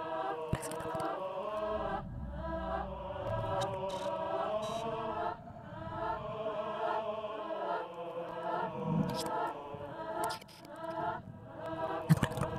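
Background music of choral chanting: several voices singing in harmony, moving from note to note, with a few light clicks.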